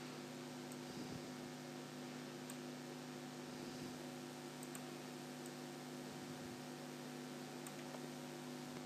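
Faint steady electrical hum from the recording chain, with a few soft, scattered computer-mouse clicks as vertices are selected and moved.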